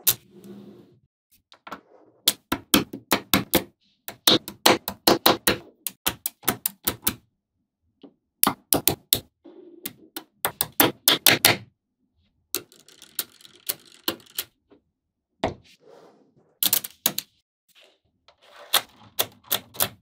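Small magnetic balls clicking together as they are snapped into place one after another, in quick runs of sharp clicks with short pauses between.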